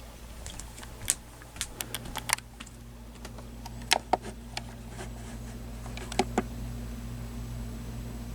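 Irregular clicking of computer keyboard keys, in short clusters of a few strokes, over a steady low electrical hum.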